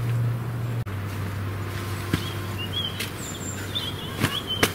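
Small birds chirping outside the tent, with a few sharp clicks and rustles as bedding is handled, over a steady low hum.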